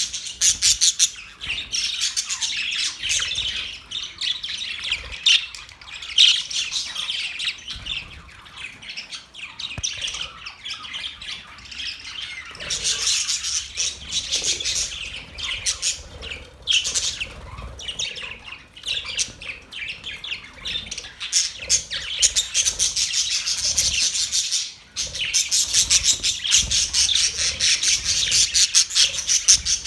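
Several budgerigars chattering and squawking, a dense, unbroken run of chirps with a short lull about 25 seconds in.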